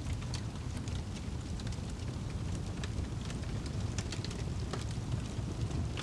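Wood fire crackling in a fireplace: a steady low rumble of burning with irregular sharp snaps and pops, a few each second.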